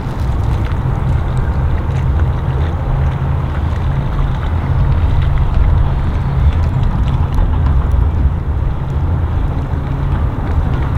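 Outboard motors running slowly as boats pass at low speed, a steady low rumble mixed with wind noise on the microphone.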